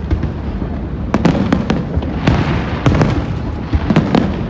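Fireworks display going off: a rapid string of sharp bangs, several in a row every second or so, over a continuous low rumble.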